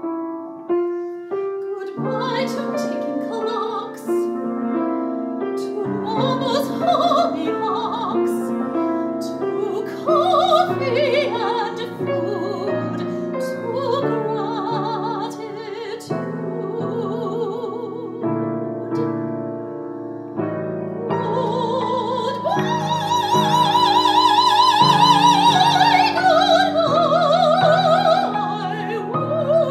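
A female opera singer sings an aria with wide vibrato, accompanied by piano. About two-thirds of the way in she rises to a loud, long-held high note, then falls away.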